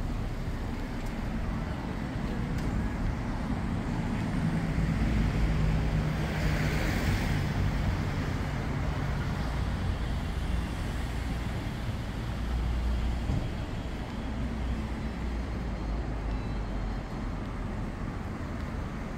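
Street traffic: cars and other vehicles running steadily past, with one passing closest and loudest about five to seven seconds in.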